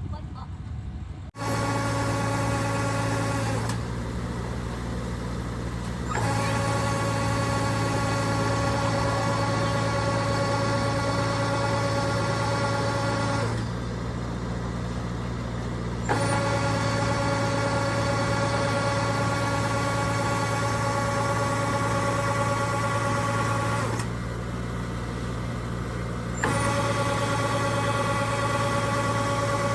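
Kubota DC-70G rice combine harvester running steadily with an even engine drone and a whine of several steady tones. The sound jumps up sharply about a second in, then drops to a quieter level for a couple of seconds three times before coming back up.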